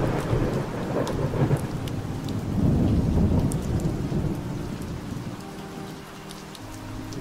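Rain falling with rolling thunder; the rumble swells about two and a half seconds in and dies away over the next few seconds.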